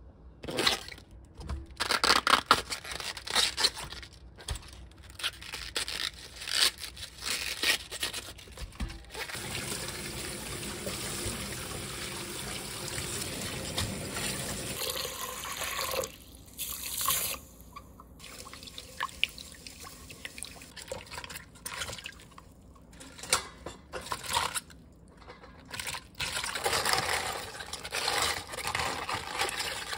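Kitchen water sounds: cabbage leaves splashed and rinsed in a mesh colander, with a steady stretch of running tap water in the middle. Near the end, cabbage leaves are pushed and squished in salt brine in a steel bowl. Knocks and clatter from handling come throughout.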